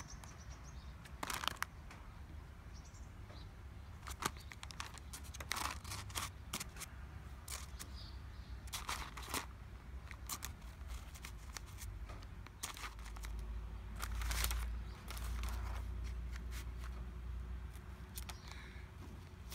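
Jackdaw pecking and pulling at a newspaper with its beak: irregular sharp taps with paper rustling and tearing.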